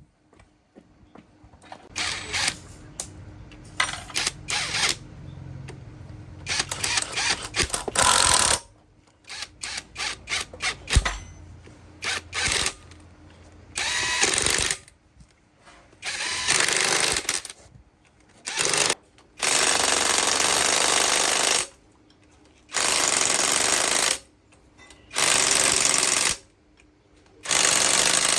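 A power tool run in repeated bursts of one to two seconds with short pauses between, a steady noisy hiss-like sound while it runs.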